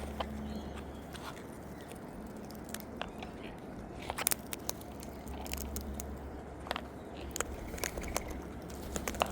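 A flock of wild birds pecking and cracking seed: irregular sharp clicks and crunches, busiest around four seconds in.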